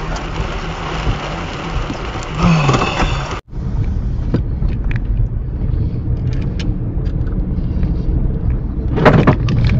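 Rain beating on a car, over steady engine and road noise, cuts off abruptly about three and a half seconds in. It gives way to the steadier low hum of engine and tyres heard inside a car driving slowly, with a few light ticks, growing louder near the end.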